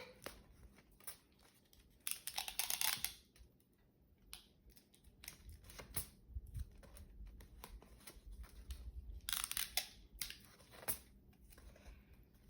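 Strips of tape pulled off the roll and torn, with construction paper rustling as it is wrapped around a cardboard paper towel roll. There are two louder tearing bursts, about two seconds in and about nine seconds in, with small clicks and handling noises between them.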